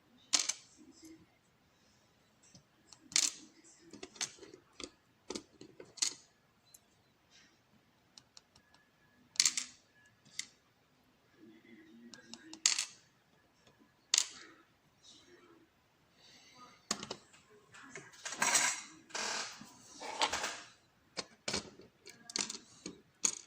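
Small metal lock pins from a gutted Ruko lock cylinder clicking and rattling as they are tipped out and handled on a hard surface. Sharp single clicks come a second or a few seconds apart, with a busier stretch of rattling and scraping near the end.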